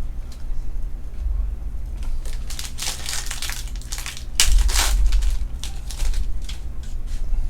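Foil trading-card pack wrapper crinkling and crackling as it is handled and opened, in irregular bursts that are loudest past the middle.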